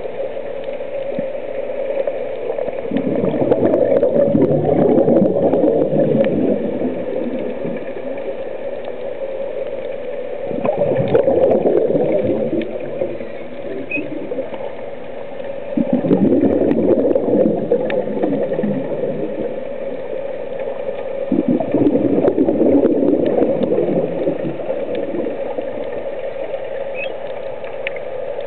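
Scuba diver's exhaled breath bubbling out of the regulator, heard underwater: four bursts of bubbles, each two to four seconds long, coming every five to six seconds over a steady low hum.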